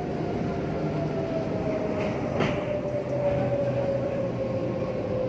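Elevated electric metro train running, heard from inside the carriage: a steady rumble with a thin whine slowly falling in pitch, and a single sharp clack about two and a half seconds in.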